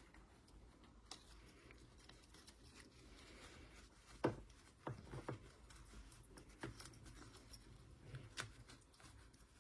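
Faint handling noises of a small ball-jointed doll being fitted into a fabric dress: scattered soft clicks and taps, the loudest about four seconds in, with a few more just after.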